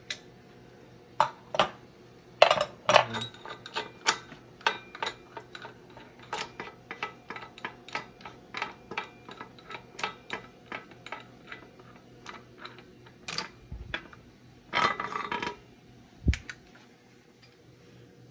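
Metal clicking and clinking from a threaded headset cup press being loosened and taken apart on a bicycle frame, short clicks about two a second. Near the end a louder clatter of metal parts and one dull knock.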